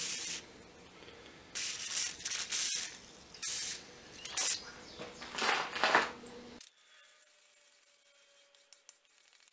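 Wet hand-sanding of a steel wakizashi blade: sandpaper strokes rasping on the wet steel in irregular hissing bursts, which stop suddenly about six and a half seconds in and leave only faint background noise.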